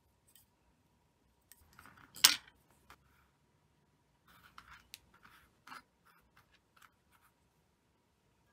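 Small handling noises of tatting lace, thread and a steel hook: one sharp click or snip about two seconds in, then a scatter of light clicks and rustles.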